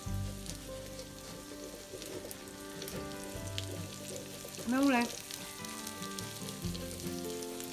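Noodle kugel frying in oil in a non-stick pan with a steady sizzle, while a wooden spatula works around the edges to loosen it. A brief pitched sound that rises and falls is the loudest moment, about five seconds in.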